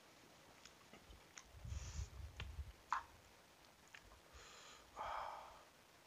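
Faint eating sounds: a metal fork clicking against a plastic bowl as noodles are twirled, the sharpest click about three seconds in, with soft mouth and handling noise. A loud breath or sniff comes about five seconds in, from the heat of very spicy noodles.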